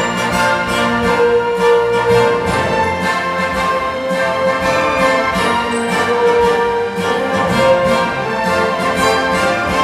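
Full orchestra with brass and strings playing film-score music, reproduced through a hi-fi system's M&G Audio V8F floor-standing speakers driven by a Line Magnetic LM-508IA valve amplifier. The music is held and continuous at an even level.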